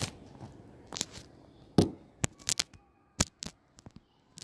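Hard plastic L.O.L. Surprise ball and its clear shell pieces being handled: a run of sharp plastic clicks and taps, with one louder knock about two seconds in.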